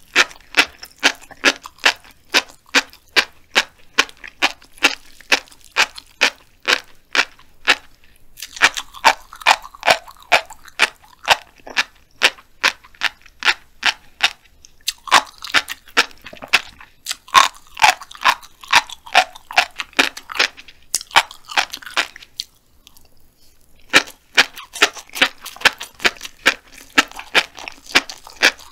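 Close-miked chewing of a mouthful of black flying fish roe: a steady run of sharp pops and crackles as the tiny eggs burst between the teeth, about three a second, pausing briefly twice.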